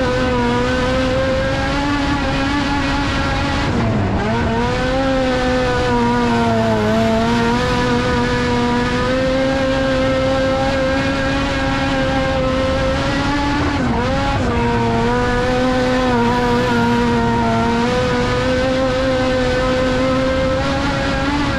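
Race car engine running hard at high revs, heard from inside the cockpit. Its pitch dips briefly and climbs back about four seconds in and again about fourteen seconds in, as the driver lifts for the turns of the dirt oval.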